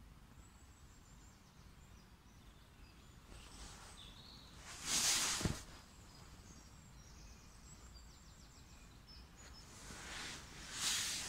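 Faint woodland birds chirping and trilling over a quiet outdoor background. Two short rushes of noise stand out louder, one about five seconds in with a brief low knock inside it, and one near the end.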